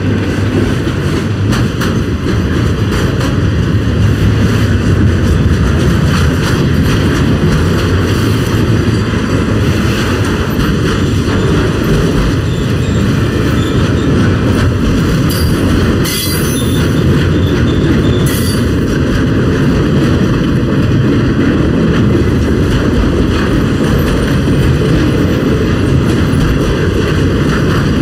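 Ringling Bros. circus train's loaded flatcars rolling past close by: a loud, steady rumble of steel wheels on rail with sharp clicks and clanks, two sharper hits a couple of seconds apart past the middle.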